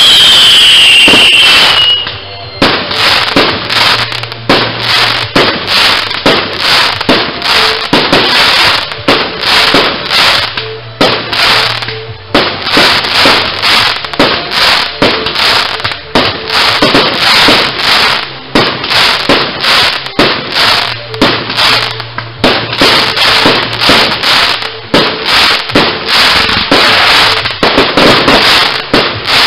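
Fireworks display: a continuous barrage of launches, shell bursts and crackle, rapid and dense throughout. It opens with a falling whistle over the first two seconds.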